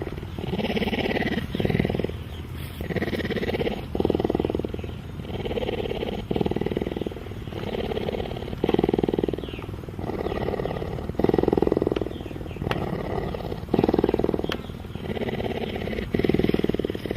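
Cheetah vocalising in low, pulsing calls that repeat evenly, about one every second or so.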